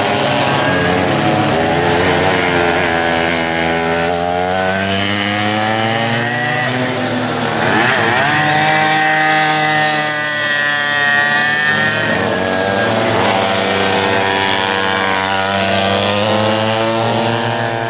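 Vintage racing karts' small two-stroke engines buzzing at high revs, several at once. Their pitch keeps rising and falling as the karts accelerate and lift off through the corners. The sound grows louder about halfway through as a kart passes close.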